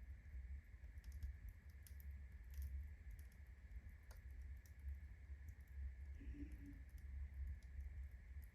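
Unsplit birch logs burning in a fireplace as the fire gets going: scattered, irregular faint crackles and pops from the burning birch bark over a low rumble of flame.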